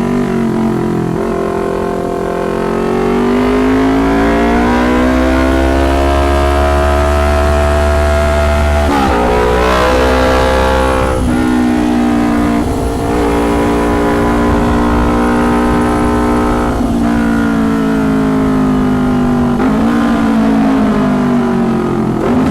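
2019 Kawasaki Ninja 250's parallel-twin engine through a loud custom exhaust, accelerating hard. The pitch climbs and drops sharply at gear changes about nine, eleven and thirteen seconds in, then the engine holds a fairly steady speed.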